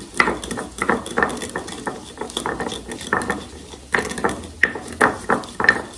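Ulekan pestle knocking and grinding garlic, pepper and salt in a cobek mortar, in repeated strokes about two a second.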